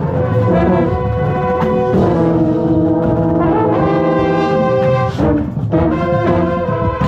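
Drum corps brass section playing sustained chords, with a marching euphonium right at the microphone. The notes change several times, with a brief break about five seconds in.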